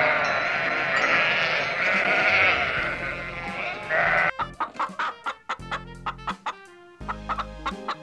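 A flock of sheep bleating together for the first half, then hens clucking in a run of short repeated calls, over soft background music.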